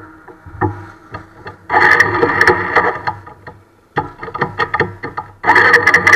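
Two-wheeler engine running close to the microphone, with ticks and rattles. It starts loudly and suddenly about two seconds in, drops away after another two seconds, and cuts in loudly again near the end.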